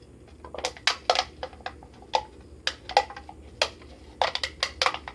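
Thin metal of an empty food can and its ground-off lid clicking and clinking as they are handled: a dozen or so sharp, irregular clicks.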